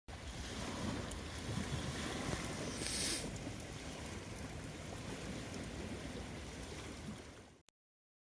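Outdoor wind and water noise, a steady rushing with a low rumble, with a short hiss about three seconds in; it cuts off abruptly near the end.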